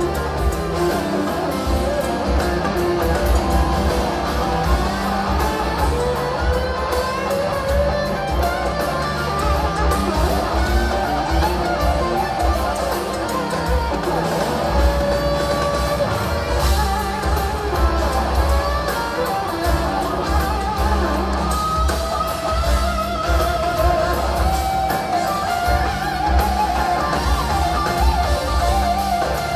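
Live rock band with an electric guitar solo: sustained lead notes that bend and waver with vibrato, climbing higher in the last third, over bass and drums.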